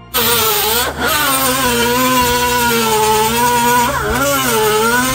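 A power tool running hard on the puller's forcing screw to draw a differential carrier bearing off. Its pitch sags and recovers about a second in and again near four seconds, as it loads up.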